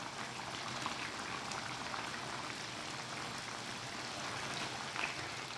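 Pork and its sauce simmering steadily in a nonstick wok, an even bubbling crackle, as dark brown sugar is added and stirred in.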